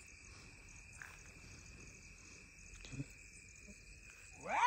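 Crickets trilling steadily, with a short rising cry near the end that is the loudest sound.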